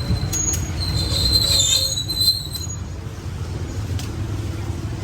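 Steady low rumble of street traffic, with a high, thin squeal lasting about two seconds in the first half.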